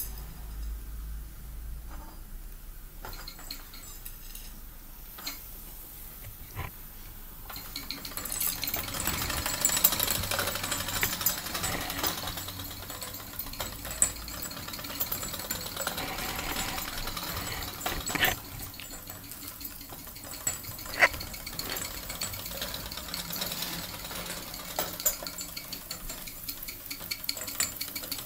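Mamod TE1A toy steam traction engine running under steam, its oscillating cylinder and gearing making a fast mechanical rattle. The rattle grows denser about eight seconds in, with a few sharp clicks.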